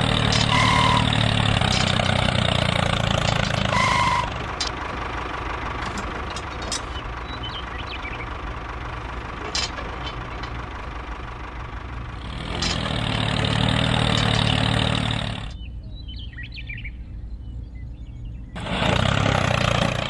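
Tractor engine running, loud in stretches and dropping back between them, with two short high beeps in the first four seconds.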